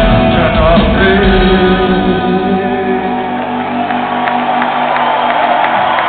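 Live rock band playing in an arena, with a male voice singing at first. About two seconds in the drums and bass drop out, leaving an electric guitar chord ringing as the song winds down, with the crowd shouting over it.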